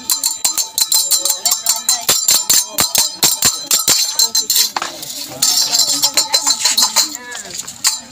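Traditional Sasak gendang beleq music: fast drum strokes several a second with jingling, clashing cymbals. The strokes thin out about four seconds in, leaving mostly the cymbal jingle.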